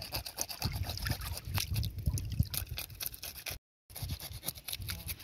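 Knife blade scraping scales off a fish held in shallow water, in quick repeated strokes with small splashes and trickling water. The sound cuts out briefly about three and a half seconds in.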